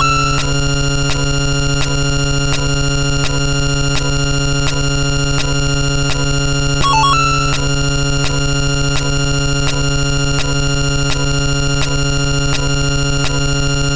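A dense, loud pile-up of many looping electronic sound effects and tones playing at once, over a steady low hum and regular clicks, with a short jingle that comes round about every seven seconds.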